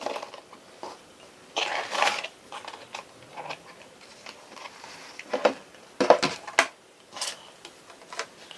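Unboxing handling sounds: a ribbon pulled loose, a cardboard presentation box lid lifted open, and a cloth dust bag rustled and lifted out. A few sharp knocks and clicks of the box come through around the middle.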